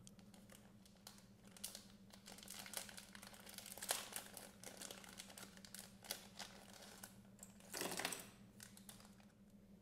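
Thin clear plastic packaging crinkling and crackling as fingers handle and open it, with a louder rustle about eight seconds in.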